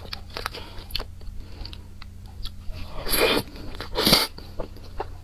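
Close-miked mouth sounds of eating soft cream cake from a spoon: many small wet chewing clicks and smacks, with two louder, longer sounds about three and four seconds in as a spoonful goes into the mouth.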